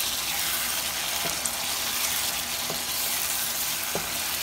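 Goat ribs in masala sizzling as they fry down in a non-stick wok, stirred with a wooden spatula that knocks against the pan about three times. This is the bhuna stage, with the meat already tender and being browned in the thickening masala.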